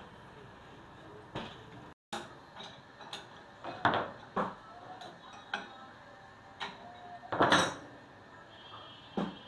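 Steel spanners clinking and clanking against the collet nut and spindle of a CNC wood router while the collet nut is loosened to change the bit: a string of sharp metallic knocks, loudest about four seconds in and again in a cluster near eight seconds.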